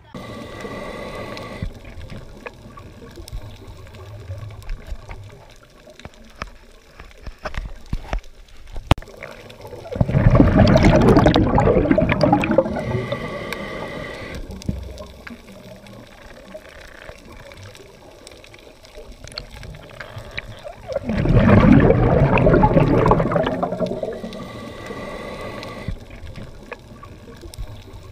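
Scuba diver breathing through a regulator underwater: two long rushes of exhaled bubbles about eleven seconds apart, each fading over a few seconds, with a shorter, thinner hiss of inhaling between them.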